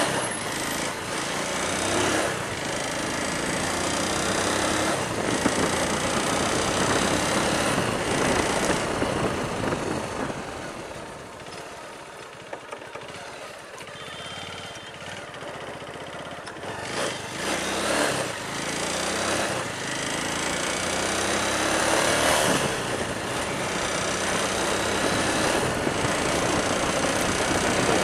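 Motorcycle riding along a highway: a steady rush of wind over the microphone mixed with the running engine and tyre noise. It eases for a few seconds about a third of the way through, then builds again.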